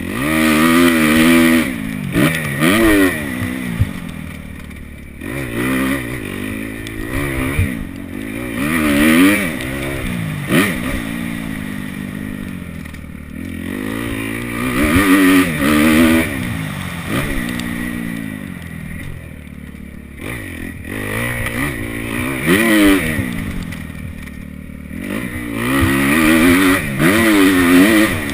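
Kawasaki KX250F four-stroke single-cylinder motocross engine being ridden hard, revving up in repeated bursts with the pitch climbing steeply, then backing off between them.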